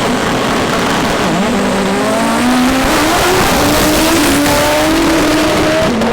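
Front-wheel-drive drag car's engine at full throttle down the strip, its pitch climbing, dropping back at each upshift and climbing again.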